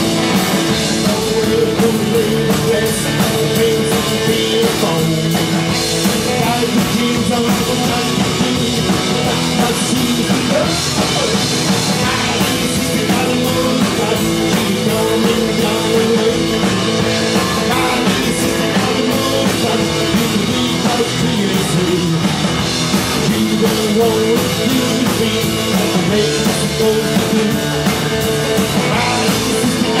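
Live rockabilly band playing: electric guitar, acoustic guitar, upright double bass and drum kit, with a male lead vocal.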